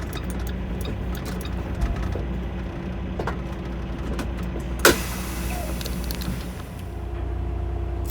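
Semi truck's diesel engine idling steadily, heard from inside the cab. Light rapid ticking in the first second or so, and a single sharp burst with a short hiss about five seconds in.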